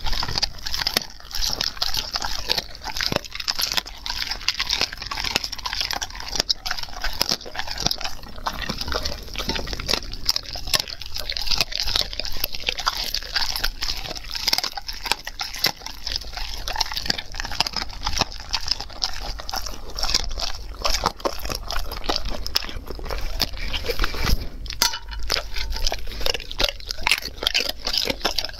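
A German Shepherd dog chewing and crunching raw meat close to a clip-on microphone: a steady run of irregular crunches and mouth clicks.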